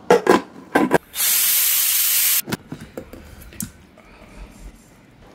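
Pressure cooker letting off steam: a loud, steady hiss lasting about a second and a half. It comes after a few sharp metal knocks and is followed by several lighter knocks.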